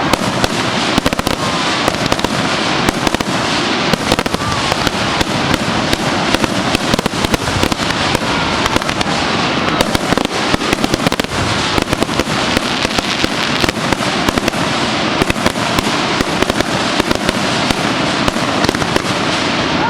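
Fireworks display going off continuously: a dense, rapid stream of bangs and crackling with no pause.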